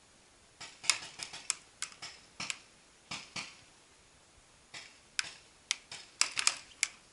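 Paintball fire: about twenty sharp cracks in quick, irregular bursts of two to five, like a rapid clatter of clicks.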